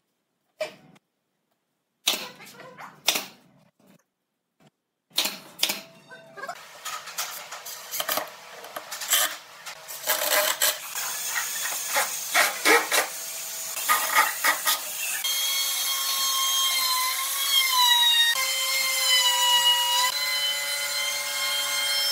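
Hand-held power tools working wood. Short stop-start bursts at first, then a continuous run with a steady motor whine that shifts in pitch a few times as it cuts.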